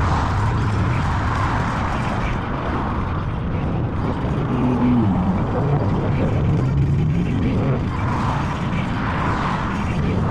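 Wind and road noise while riding a Falcon Pro 79 electric dirt bike, a steady rushing haze heavy in the low end, with traffic around.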